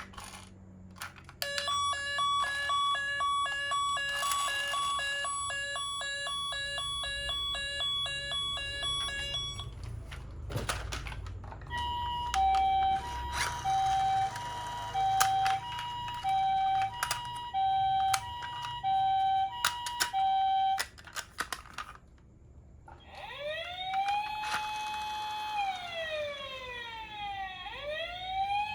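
Electronic siren sounds from toy ambulances, one after another. First comes a fast warbling alternation of two tones. Then a two-tone hi-lo 'pee-po' ambulance siren plays, and near the end a siren wails, rising and falling in pitch. A brief low rumble falls between the first two sirens.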